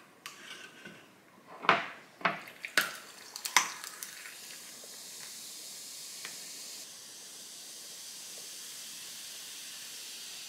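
Welch's Zero sparkling grape soda poured over ice in a glass: a few sharp clinks and cracks of ice in the first few seconds, then a steady fizzing hiss of carbonation.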